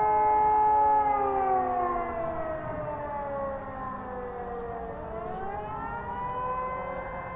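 Several distant electromechanical civil-defence sirens sounding together during a test alarm, their overlapping tones heard from far off. The pitch slides down over a few seconds, then winds back up about five seconds in and holds steady.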